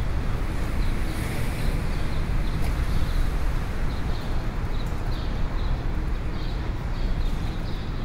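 City street ambience: a steady low rumble of traffic, with short high chirps repeating about twice a second over it.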